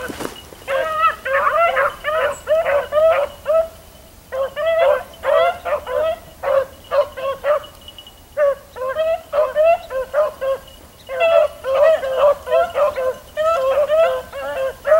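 Beagles baying on a trail, giving tongue in runs of quick, high, yelping notes broken by short pauses.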